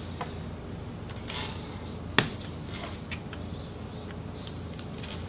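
Light clicks and taps of small parts handled on the open logic board of a MacBook Pro, with one sharp click about two seconds in, as the battery connector's cover is lifted off and the connector is prised up to disconnect the battery.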